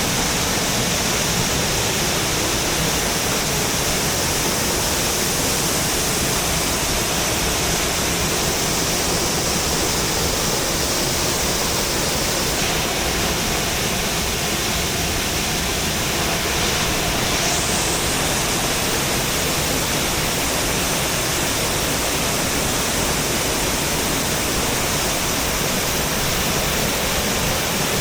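Waterfall: a steady, full rush of falling water, with small shifts in tone about halfway through.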